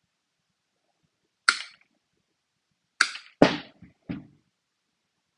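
Flush cut pliers snapping through material in four sharp cuts, two of them close together near the middle, the third the loudest.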